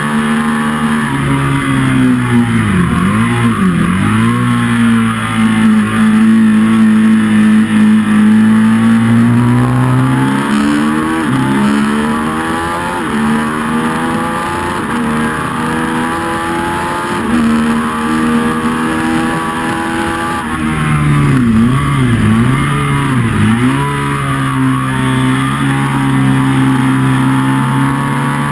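Ducati 1199 Panigale's Superquadro V-twin under hard riding, heard from on the bike. Its pitch drops sharply and recovers several times about three seconds in and again around twenty-two seconds in, as the rider changes gear, and holds in long steady pulls in between, over a steady rush of wind.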